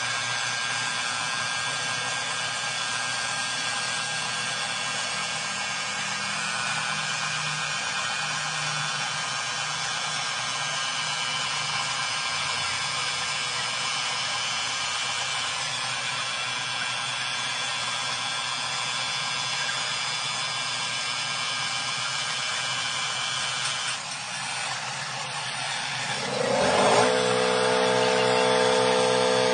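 Angle grinder running steadily, its disc held against a turning chrome hydraulic cylinder rod to polish it. Near the end the sound turns louder, with a short rising whine that settles into a steady pitched hum.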